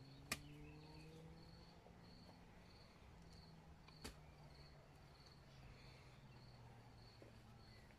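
Near silence: faint insect chirping repeating about twice a second over a faint low hum, with two sharp knocks, one just after the start and one about four seconds in, from a garden hoe striking the soil.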